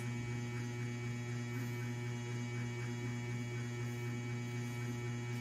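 Steady low electrical hum with fainter higher overtones.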